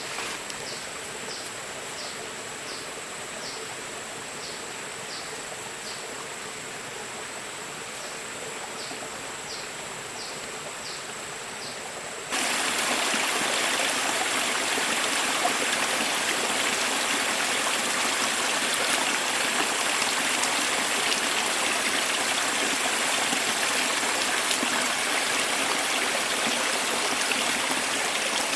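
Stream water running, with a steady high insect-like whine over it. For the first twelve seconds the water is softer, with a series of short high chirps at about two a second; then the water sound jumps abruptly louder and fuller.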